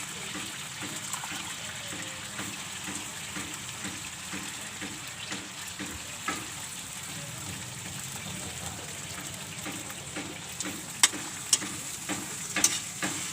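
Kangkong (water spinach) frying in a pan with a steady sizzle. Several sharp clicks of a utensil against the pan come near the end.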